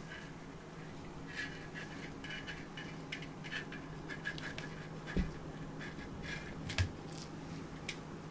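Light scratching and rustling in many short bursts, with two soft knocks about five and seven seconds in, over a faint steady low hum.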